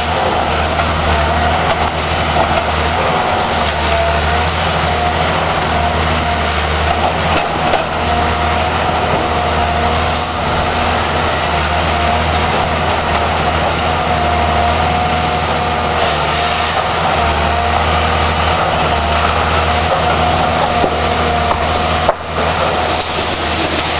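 Wood-cutting machine running steadily: a low motor hum under a held whine and a noisy rush, with a brief drop near the end.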